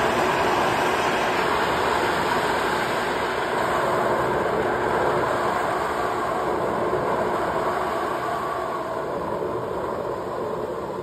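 High-pressure jet of water spray shooting up from a drilling rig's wellhead through the rig floor, a loud, steady rushing noise that eases slightly toward the end.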